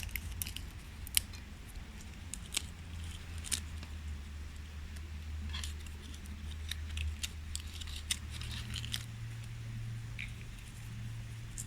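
Fatwood kindling fire crackling, with sharp irregular snaps and pops scattered through, over a steady low hum.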